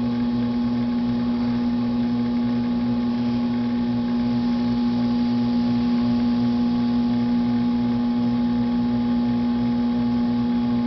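Electric potter's wheel running, a steady mains-pitched motor hum that does not change.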